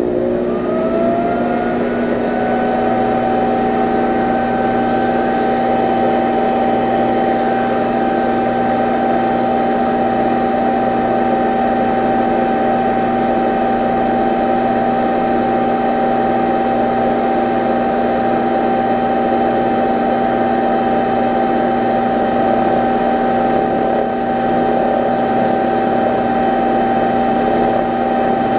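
Metal lathe spinning up with a rising whine over the first two seconds, then running steadily, driving the crankshaft and pistons of a small two-cylinder model steam engine clamped in its chuck. The engine is being motored round on the lathe to run it in with heavier oil.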